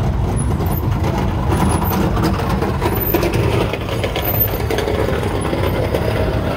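Engines of classic and muscle cars cruising slowly past, a steady low exhaust rumble.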